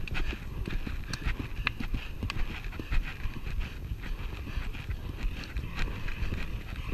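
A pony's hoofbeats on grass turf as it moves along behind other horses, with a steady low rumble on the helmet-camera microphone and many short sharp clicks.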